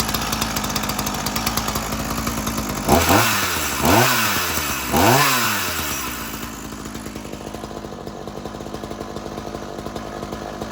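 Ryobi two-stroke gas chainsaw idling, then blipped three times about a second apart, each rev rising and falling away, before it settles back to a quieter idle; it is running again after months in storage.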